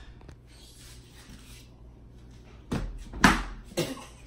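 Handling noise from the phone that is filming as it is moved and set in place: soft rustling, then three sudden knocks or bumps about three seconds in, the middle one loudest.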